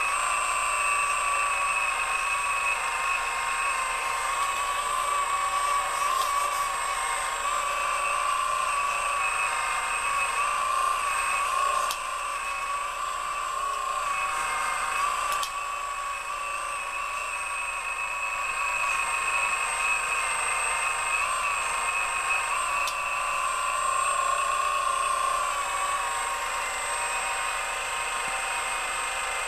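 Scale-model Komatsu RC hydraulic excavator working: a steady high whine from its electric hydraulic pump, wavering slightly in pitch as the boom and bucket move under load, with a thin constant high tone above it.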